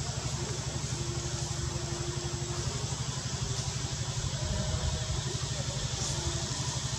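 An engine idling nearby: a steady low drone pulsing about ten times a second, over a faint even hiss.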